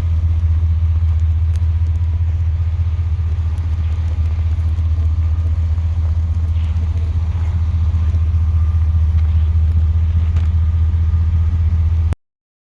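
Steady low rumble of a pickup truck, with no change in pitch, cutting off abruptly near the end.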